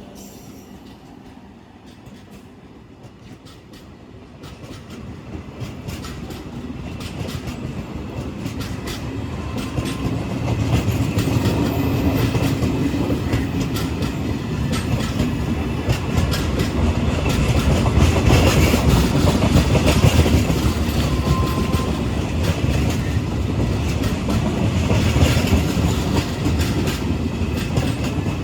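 An Indian Railways express train approaching and passing at high speed: a rising rumble that becomes a loud, steady rush of wheels and coaches, with a rapid clickety-clack over the rail joints.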